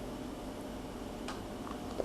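Steady room hiss and low hum, with a couple of faint clicks just past the middle.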